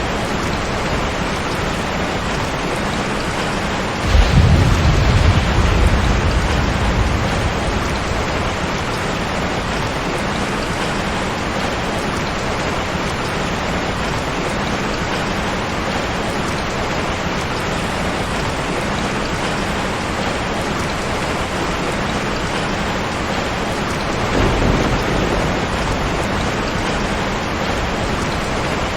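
Steady heavy rain falling, with thunder rumbling twice: a loud low rumble about four seconds in lasting a few seconds, and a weaker one near the end.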